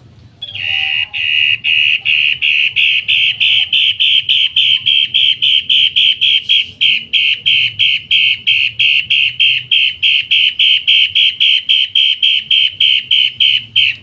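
A caged cendet matahari calling a long series of harsh, loud notes repeated rapidly and evenly, about four a second, starting about half a second in.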